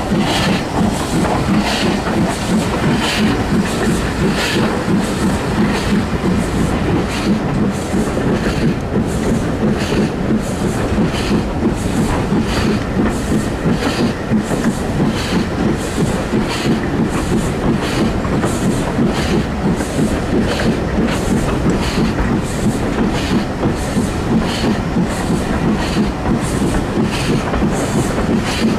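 BR Fairburn 2-6-4 tank locomotive working a passenger train, heard from an open window of the leading carriage: a steady rumble of the train in motion with a regular, even beat of the engine's exhaust and wheels running through the whole stretch.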